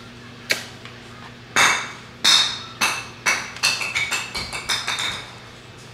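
A quick irregular run of about ten sharp clinks and knocks of tableware, some ringing briefly.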